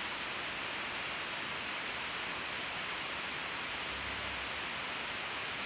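A steady, even hiss with no separate strokes standing out.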